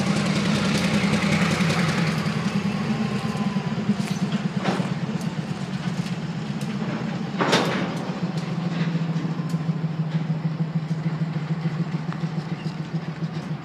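Diesel freight train with two C44 locomotives running at low speed: a steady low engine drone, easing slightly in the second half, with a few sharp metallic clanks, the loudest about five and seven and a half seconds in.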